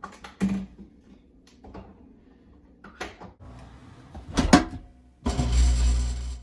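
A dishwasher being handled: a series of knocks and clatters as its racks and door are moved, the loudest about four and a half seconds in. Near the end a steady rushing noise with a low hum runs for about a second.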